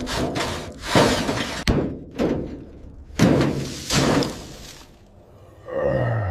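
A series of loud crashes and thuds, about five in all, like heavy objects slamming and breaking, then a short groan that falls in pitch near the end.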